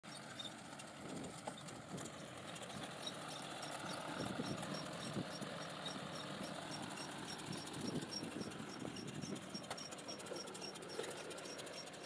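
John Deere tractor pulling a Gomadhi round straw baler through rice straw, the engine and baler running and heard faintly as a steady clattering noise. A light, regular high ticking comes two to three times a second.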